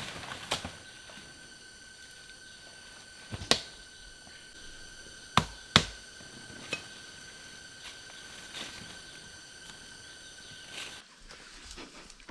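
A few sharp knocks, about five, the loudest a little before the middle, over a steady high-pitched drone of jungle insects that stops suddenly near the end.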